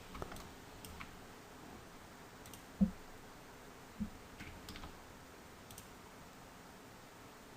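Faint, scattered computer mouse clicks over quiet room tone, with two short, soft low thumps about three and four seconds in.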